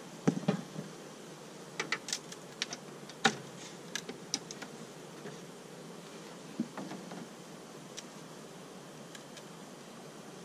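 Honeybees buzzing in a steady hum around an opened hive, with scattered sharp clicks and knocks from the hive being worked. The loudest knocks come just after the start and about three seconds in.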